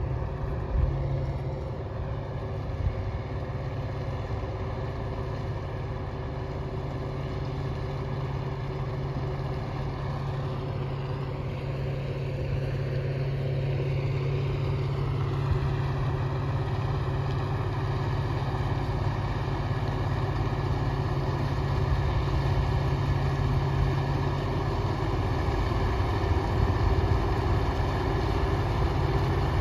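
Heavy diesel engine of a quarry truck or loader running under load, with a dip and recovery in engine speed about halfway through and growing gradually louder toward the end.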